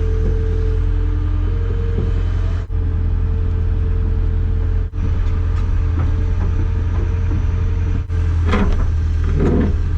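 Caterpillar 205LC excavator's diesel engine running steadily with a deep drone, heard close up from the machine, broken by three momentary drop-outs.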